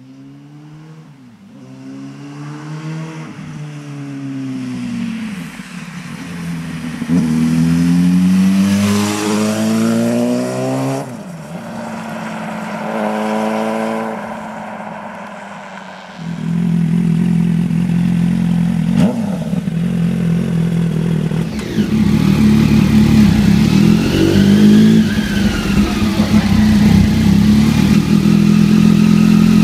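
Suzuki GSR 600 inline-four with a MIVV exhaust, dB killer removed, accelerating up through the gears as it rides in and past, its pitch climbing and dropping with each shift and loudest about ten seconds in. It then cuts abruptly to a Triumph Daytona 675 three-cylinder with an Akrapovic exhaust, running loud and revving.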